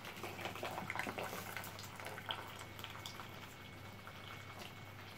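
Faint dripping of cooking water from fresh tagliatelle held up over the pot to drain, with a few light utensil clicks in the first couple of seconds, over a low steady hum.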